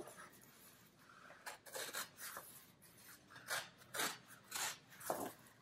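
Heavy cold-press watercolor paper being handled by hand: a faint string of short rustles and scrapes as the stiff torn sheets are lifted, slid and pressed flat, the loudest about four and five seconds in.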